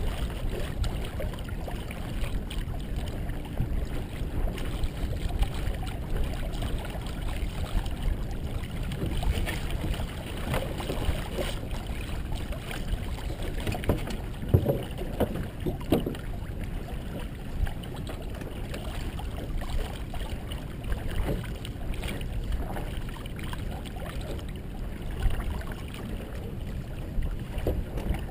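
Water rushing along a Merit 25 sailboat's hull as it sails in a fresh breeze, with steady wind noise. A few brief, louder sounds come near the middle.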